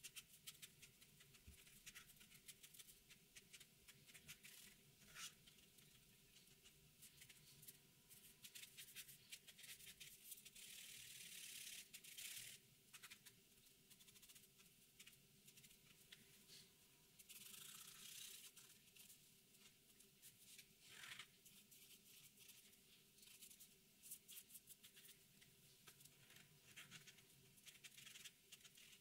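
Faint scratching of a Posca paint marker's tip on paper as lines are inked, made of many small quick strokes, with longer, louder strokes about ten to thirteen seconds in and again around eighteen seconds.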